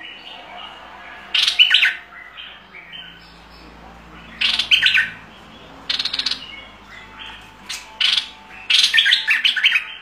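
Stripe-throated bulbul singing in loud bursts of quick, chattering notes: five short phrases a second or two apart, the last and longest near the end.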